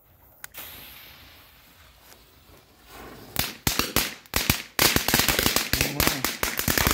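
A firework fuse catches with a click and hisses for a couple of seconds. Then firecrackers start going off: a few separate bangs, quickly building into a dense, rapid chain of cracks.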